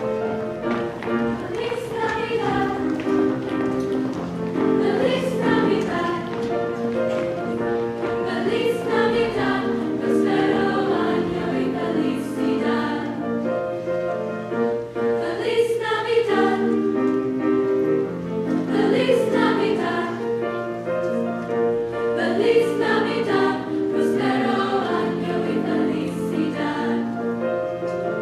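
A choir of young women singing in harmony, with sustained chords that shift every second or two.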